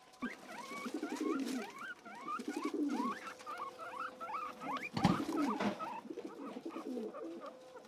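Guinea pigs squeaking in runs of short rising squeaks, several a second, over the rustle of the grass leaves they are eating; one sharp knock about five seconds in.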